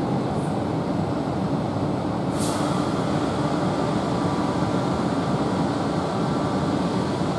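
Siemens Class 450 Desiro electric multiple unit standing at the platform, its onboard equipment giving a steady hum, with a short hiss of air about two and a half seconds in.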